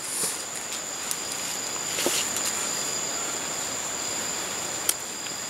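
Night insects such as crickets calling with a steady, high-pitched trill, with a couple of soft rustles in leaf litter and a sharp click near the end.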